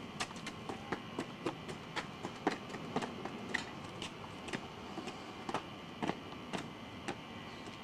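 Footsteps of people stepping in low stances on a paved path: a run of short, sharp taps, irregular and roughly two a second, over a steady faint hum.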